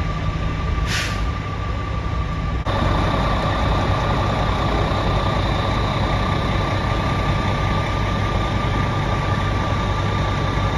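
Fire apparatus diesel engines idling steadily, with a steady high whine over the rumble and a short hiss of air about a second in. The sound steps up louder at about three seconds in.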